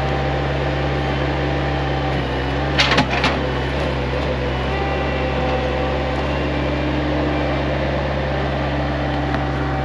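An engine running steadily at an even speed, with a brief cluster of clattering knocks about three seconds in.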